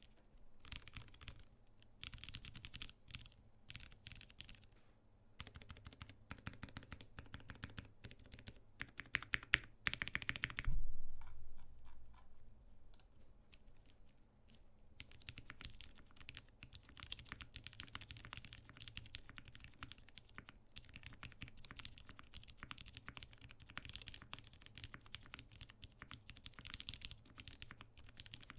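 Typing on a custom mechanical keyboard with lubed retooled Cherry MX Black linear switches, a brass plate, screw-in stabilisers and GMK keycaps: a steady run of keystroke clacks. About ten seconds in the typing turns faster and louder, ending in a deep thud, then eases off before picking up again.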